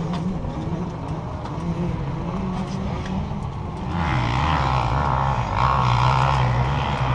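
ATV engine running steadily. About four seconds in its note drops lower and gets a little louder.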